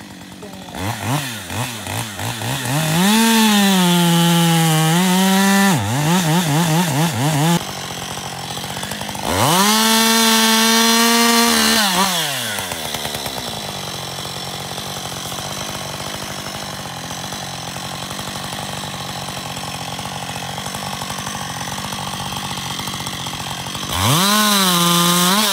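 Two-stroke chainsaw cutting a fallen log, revved to full throttle in three stretches: a long cut near the start that ends in a few short blips of the throttle, a second cut about a third of the way in, and a short one near the end. Between the second and third it drops back and idles steadily for about ten seconds.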